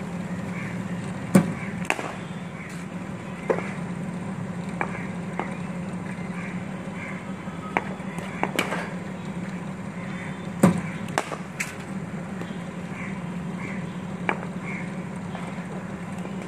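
Cricket ball knocks in a net session: sharp cracks of the ball off a bat and off the concrete pitch, over the steady low hum of a bowling machine. The two loudest cracks come about a second and a half in and about ten and a half seconds in, with smaller clicks between.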